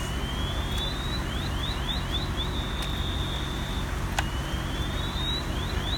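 A high-pitched electronic alarm cycles through the same sequence about every four seconds: a slow rising whoop, a run of quick rising chirps, then a steady held tone. Beneath it is a steady low rumble.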